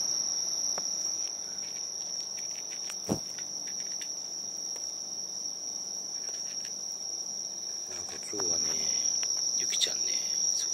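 Insects trilling steadily in one high, continuous tone, with a cat close by crunching dry kibble in scattered soft clicks. A single sharp knock about three seconds in.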